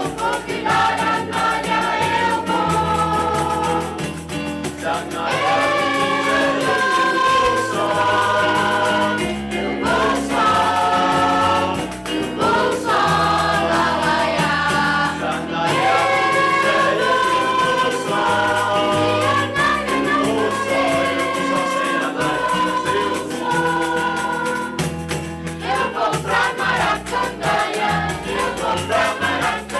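A choir singing with instrumental accompaniment, held notes moving step by step in a steady melody.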